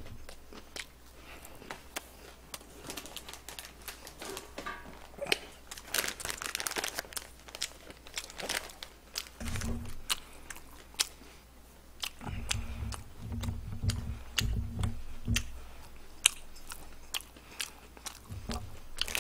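Close-miked chewing and crunching of crispy Korean fried chicken, with bites and mouth sounds. Crinkling of a wet-wipe packet as a wipe is pulled out, and a series of dull low thumps in the second half.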